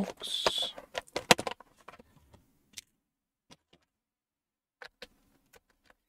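Plastic parts box handled and set down on the desk: a quick cluster of clicks and clatter with a short scrape in the first second and a half, followed by a few scattered light clicks.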